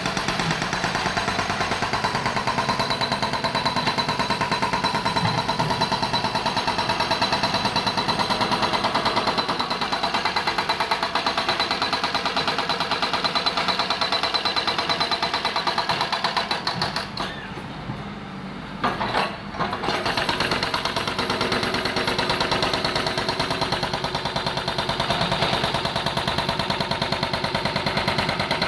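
Diesel engines of JCB machines running hard, a steady fast chugging; the sound drops away for a few seconds a little past the middle, then comes back.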